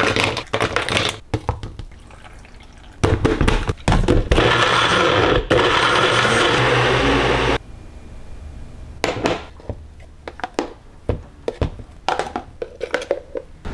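Frozen fruit clatters into a plastic NutriBullet cup. Then the NutriBullet blender runs for about four seconds, blending frozen bananas, strawberries and blueberries with protein powder and milk into a thick smoothie, and cuts off suddenly. Scattered knocks and taps follow as the cup is handled and emptied.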